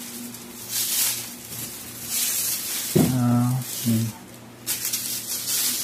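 Thin plastic bag crinkling and rustling in repeated bursts as it is handled and pulled, with clothes shuffled around it. A short vocal sound about halfway through.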